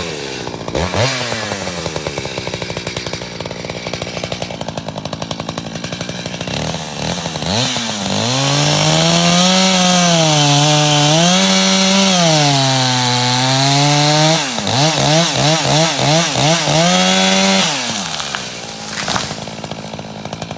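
Echo CS600P two-stroke chainsaw idling, then opened up to full throttle about eight seconds in. Its pitch dips and recovers for several seconds as it cuts into wood. It then gives a quick run of throttle blips and drops back to idle near the end.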